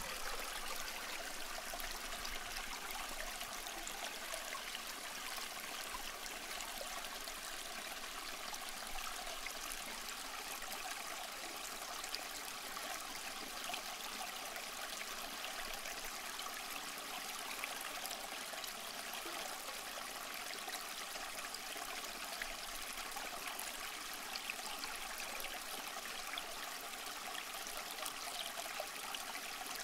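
Steady rushing noise like running water, with faint scattered ticks.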